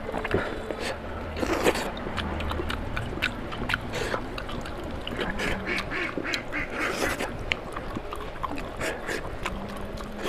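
Wet chewing, lip-smacking and mouth clicks of a person eating oily mutton curry and rice, as a string of irregular short smacks.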